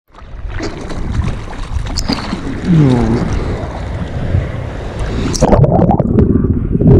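Sea water splashing and sloshing at the surface, with wind on the microphone. A little past five seconds in the camera goes under whitewater and the sound turns to a muffled underwater rush.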